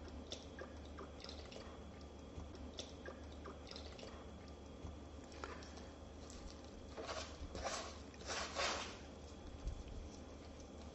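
Wooden spoon stirring thick pancake batter in a plastic bowl: soft wet squelching with small clicks of the spoon, and a few louder stirring strokes about seven to nine seconds in.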